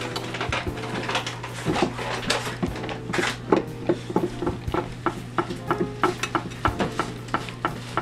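A spoon stirring a thick powdery mix in a glass jar, scraping and clicking against the glass in quick, irregular strokes, over a steady low hum.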